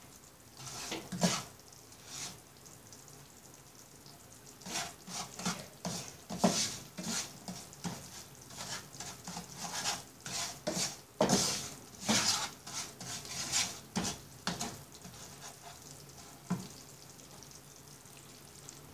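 Wooden spatula stirring and scraping lumps of jaggery as they melt in ghee in a non-stick frying pan over a low flame, in irregular strokes with a faint sizzle underneath. The stirring pauses briefly about two seconds in and again near the end.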